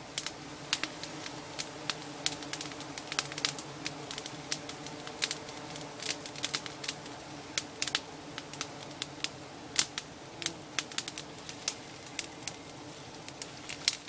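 Wild giant honeybees humming around their comb as it is smoked out for honey, with many irregular sharp crackles and clicks over the hum.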